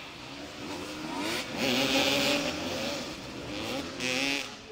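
Several motoball motorcycles revving up and down at close quarters, their engine notes rising and falling over one another. Two bursts of hiss come through, about two seconds in and again near the end.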